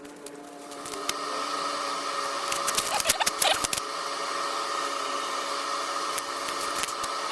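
A steady machine whir, like a fan or blower, starts about a second in and keeps running. A few clicks and rustles come over it midway.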